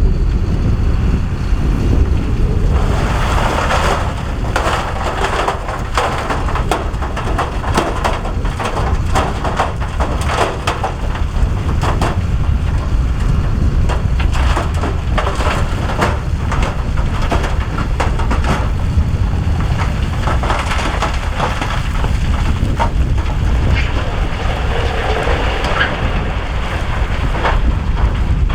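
Heavy diesel earthmoving machine running under load as it pushes rock, with a steady low engine sound under a dense crunching and clattering of rock and gravel that starts about three seconds in.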